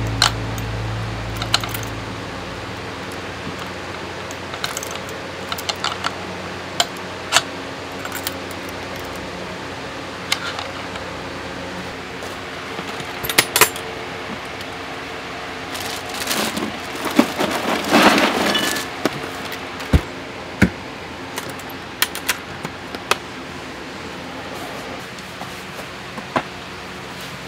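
Camping gear handled on and around a wooden table: scattered clicks, clinks and knocks as a tripod light stand, a cooler and glass bottles are set up and moved about. There is a louder stretch of clattering about two-thirds of the way in.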